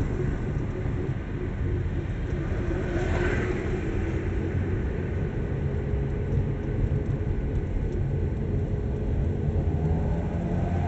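A car driving steadily along a city street, heard from inside the car: a continuous low rumble of engine and tyres. A brief hiss swells and fades about three seconds in.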